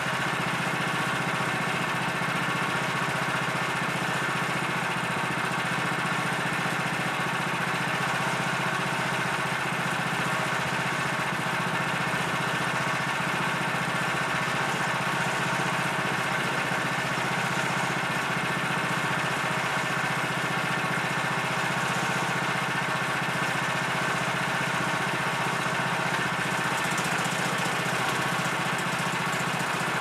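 Gas engine of a Woodland Mills portable bandsaw mill running steadily as its band blade saws through a large fir log.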